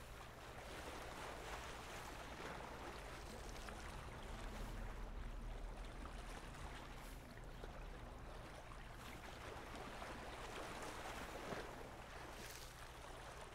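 Faint, steady lake-shore ambience: small waves lapping against a rocky shore, with a low steady rumble underneath.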